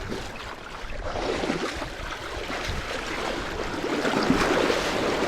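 Surf washing in on a beach, a hissing rush that swells louder toward the end, with wind on the microphone.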